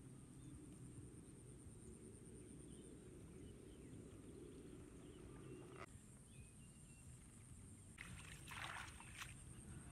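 Faint outdoor hush with a steady thin high tone; about eight seconds in, hands splash and slosh briefly in shallow muddy water.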